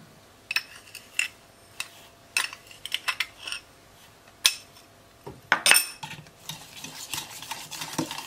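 A metal spoon clinking against a glass and a steel bowl as sugar is scooped out and tipped in: a series of separate clinks, the loudest about halfway through. Near the end a wire whisk stirs in the steel bowl.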